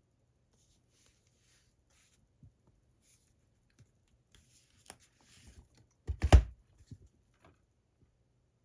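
Hands handling a boxed Blu-ray set in its rigid card slipcase: light rustles and small clicks, then one loud knock about six seconds in.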